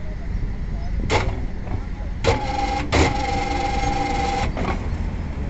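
Rebar bending machine bending a steel bar: a sharp clunk about a second in and another about two seconds in, then a steady whine with several tones for about two seconds as the turntable forces the bar round the pin, over a constant low rumble.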